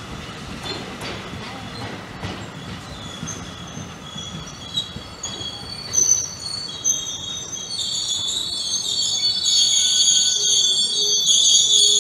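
Double-deck NJ Transit commuter train moving past the platform. A low rolling rumble gives way, a few seconds in, to high-pitched wheel squeal that grows steadily louder toward the end.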